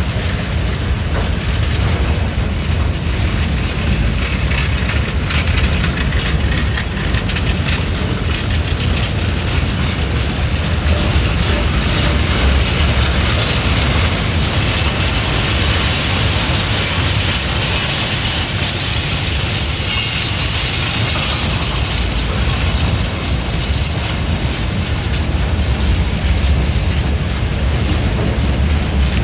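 Freight train of open goods wagons rolling past close by: a steady heavy rumble of wheels on the rails with clattering over the rail joints. A brighter high hiss builds through the middle of the pass and then eases off.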